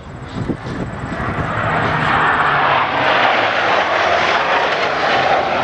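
Jet engine noise from a formation of three F/A-18 fighter jets flying past. It grows louder over the first two seconds and then holds loud and steady.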